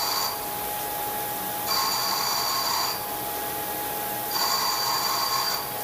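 2011 HH Roberts TW40 CNC vertical machining center milling a metal part under flood coolant: a steady spray hiss and steady tone, with a high-pitched cutting whine that comes in three times, each for just over a second, about every two and a half to three seconds.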